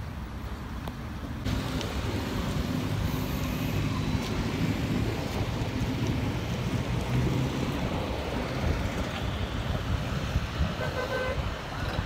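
Road traffic noise with a low rumble that steps up about a second and a half in. Near the end there is a short pitched toot.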